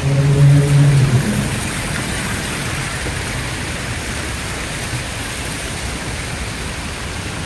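Steady rushing noise of a bicycle being ridden, with wind on the microphone and tyres rolling on a concrete path. A low steady hum sounds over it for the first second or so, then stops.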